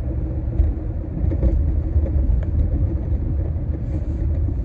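Steady low rumble of a car on the move, heard inside the cabin: engine and tyre noise while driving on a snowy, icy road.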